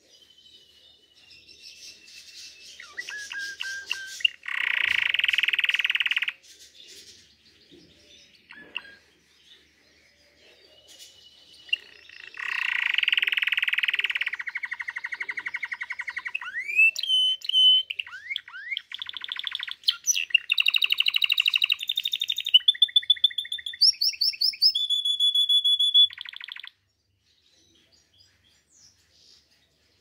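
Domestic canary singing: a short burst of song with a loud rolling trill, a pause of several seconds, then a long song of rolling trills, fast repeated whistled notes and rising glides that stops abruptly near the end.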